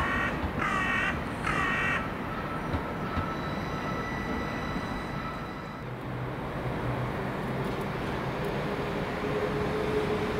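A crow caws three times in quick succession over the steady rumble of a train. Later a train's motor whine starts up and slowly rises in pitch, growing louder near the end.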